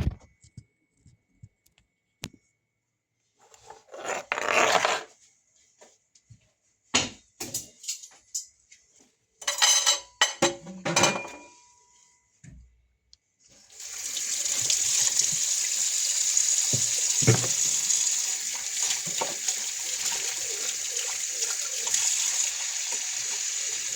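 Dishes and utensils clattering in short bursts, then a kitchen tap turned on a little over halfway through, water running steadily into the sink.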